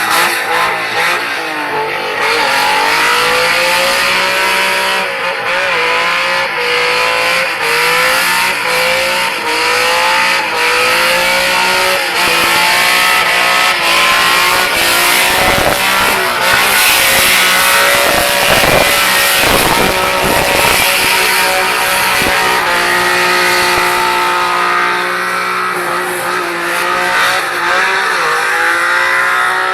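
Car engine held at high revs with the throttle pinned, its pitch rising and falling as the car spins and slides on wet ground. In the middle the tyres break into a harsher stretch of wheelspin noise before the engine tone settles again.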